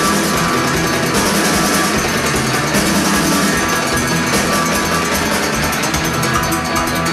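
Live rock band playing: electric guitars strumming over a drum kit with steady cymbals and percussion.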